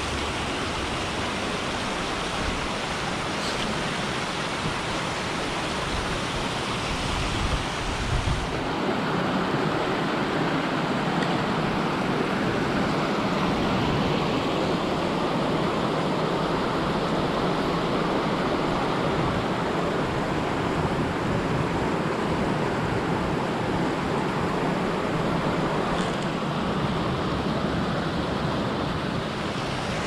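Waterfall rushing steadily, a constant wash of falling water whose sound shifts abruptly about eight seconds in.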